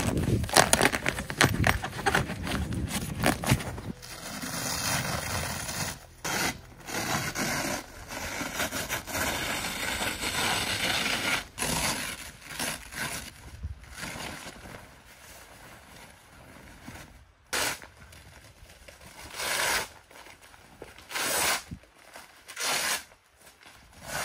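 Tent fabric rustling and scraping as it is handled, in a string of separate bursts of noise.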